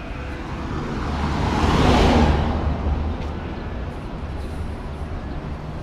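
A vehicle passing close by, its tyre and engine noise swelling to its loudest about two seconds in, then fading away, over a steady low rumble.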